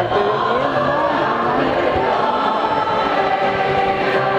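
Choir singing, holding long notes in chords while one vocal line moves up and down.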